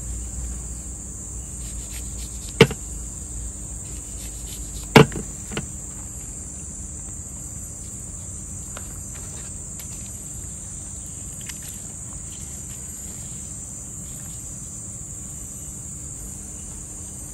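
Steady high-pitched drone of insects, with two sharp knocks about two and a half and five seconds in.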